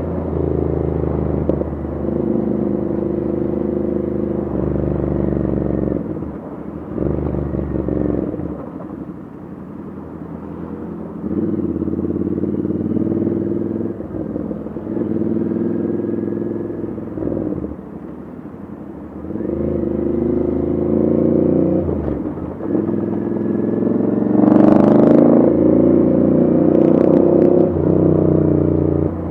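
Royal Enfield 650's 648 cc parallel-twin engine through an aftermarket Diablo exhaust, repeatedly opened up and rolled off in traffic, with pops and crackles from the exhaust as the throttle closes. The loudest run of throttle comes near the end.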